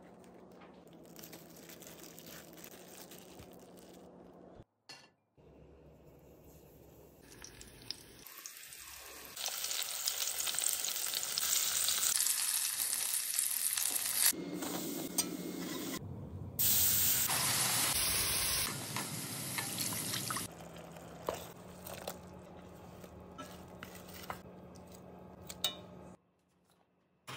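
Chicken drumsticks sizzling as they fry in oil in a Dutch oven, the steady hiss loudest through the middle, with quieter kitchen handling sounds and a few clicks around it.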